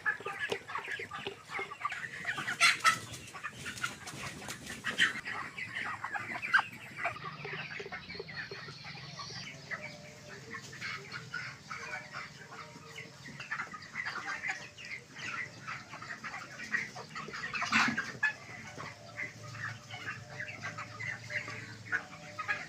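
A flock of 26-day-old broiler chickens calling, many short overlapping peeps and clucks at once, with a louder sharp squawk or flutter a few seconds in and again near the end.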